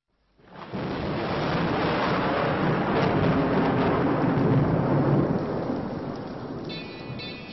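Thunderstorm sound effect: a long rumble of thunder over steady heavy rain that swells up within the first second and slowly dies away. A few musical notes come in near the end.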